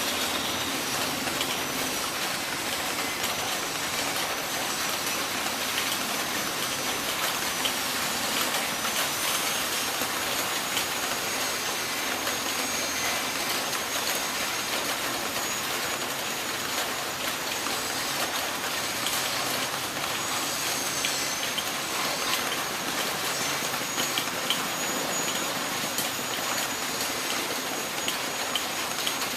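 Heavy rain falling steadily, with a faint, thin, high tone wavering above the rain.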